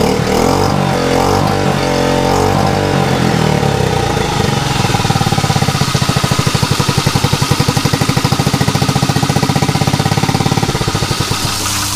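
2010 Yamaha F6 6 hp four-stroke outboard running, its speed rising and falling in the first few seconds, then settling to a low idle with an even, pulsing beat that weakens near the end.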